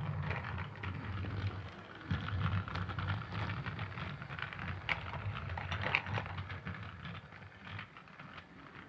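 A Thomas train running, with a steady low rumble under irregular clicking and clattering, and a couple of sharper clicks about five and six seconds in.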